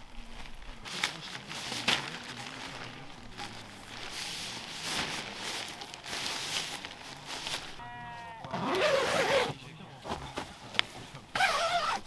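An animal bleating once, a short wavering call about eight seconds in, among scattered soft knocks and rustles.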